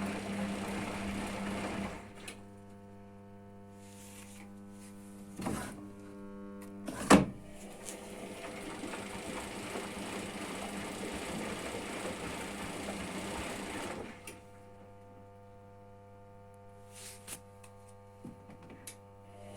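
Hotpoint washing machine turning its drum in the rinse cycle: the motor runs for about twelve seconds with a steady hum, then stops. A sharp knock comes a little after 7 s, and a few light clicks follow during the pause.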